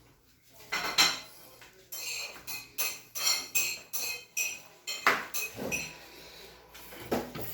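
Refrigerator fan assembly being handled and fitted back into place: a run of short clicks, rattles and knocks of parts against each other, with a few louder knocks.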